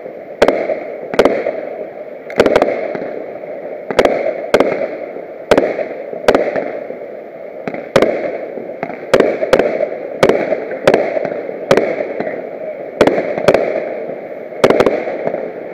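Aerial fireworks shells bursting in quick succession, with sharp bangs at about one to two a second, each followed by a fading rumble.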